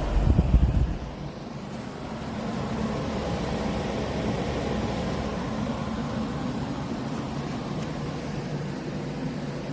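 Humhold 14000 BTU portable air conditioner running: a steady hum with fan noise. A loud low rumble in the first second, then the hum carries on evenly.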